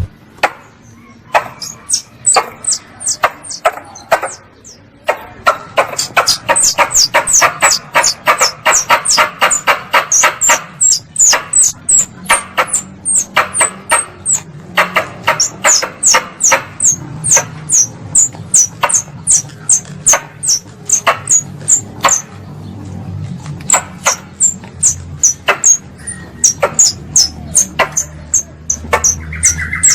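Squirrel lure call: a rapid series of sharp, high-pitched chirps, about four a second, each dropping quickly in pitch. A harsher chattering runs under them from about six to ten seconds in.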